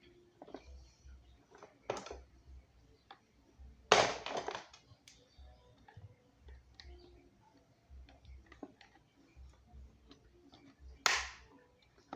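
Fan parts being handled during disassembly: scattered clicks and knocks, with a loud clatter about four seconds in and another near the end.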